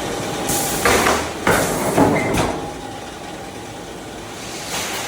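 Automatic washing-machine drum production line running with a steady hum, broken by a cluster of loud, short hissing bursts about half a second to two and a half seconds in and another, weaker one near the end.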